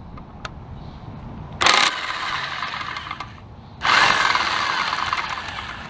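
Tool working the oil pump's 15 mm bolt loose: a short burst of mechanical noise, then after a pause a longer run of about two seconds.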